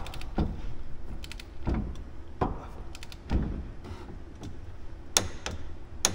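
Long torque wrench ratcheting and clicking on the bolts of a UTV's front brake as they are torqued, with a few heavier metal clunks among the quick clicks.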